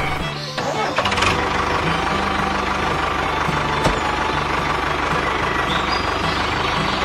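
An engine running steadily at idle, with a brief drop about half a second in and a single sharp click near four seconds.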